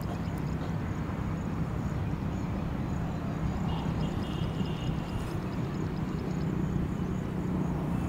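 Steady low outdoor rumble with a droning hum, and faint high ticking repeating evenly over it; a brief faint chirping comes about four seconds in.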